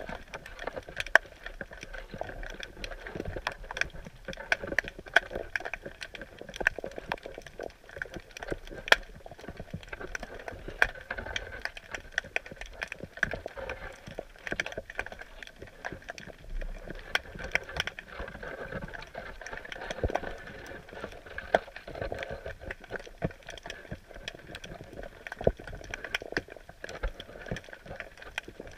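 Underwater sound picked up by a camera in a submerged crab net: a dense, irregular crackle of sharp clicks over a steady hiss.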